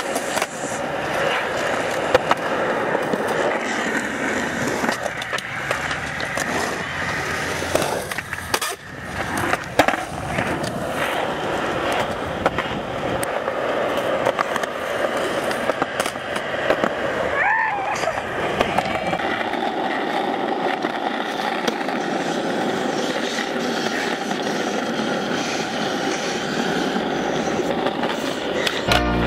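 Skateboard wheels rolling on concrete, with the sharp snap of board pops and clacks of landings now and then.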